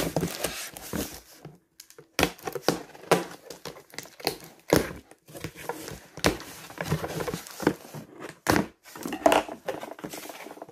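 A cardboard parcel being cut and torn open: a knife slitting the packing tape, then tape, plastic wrap and cardboard flaps pulled and ripped back, in a run of short scrapes, rips and crinkles.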